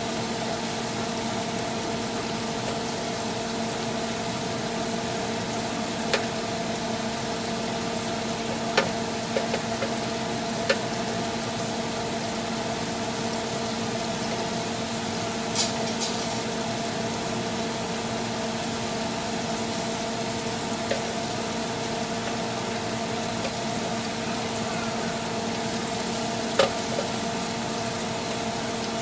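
Black tiger shrimp sizzling in garlic butter in a grill pan, with a handful of sharp taps as a wooden spatula turns them against the pan. A steady hum runs underneath.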